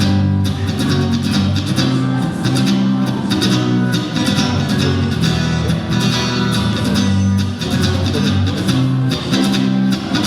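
Guitar strummed in a steady rhythm, playing the instrumental intro of a song before the singing starts.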